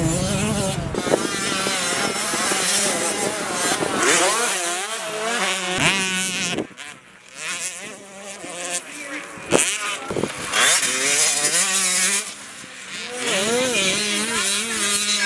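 Several 65cc two-stroke motocross bikes racing past, their engines revving up and falling off in repeated swells as riders work the throttle through the corners and jumps. The engines briefly fade twice.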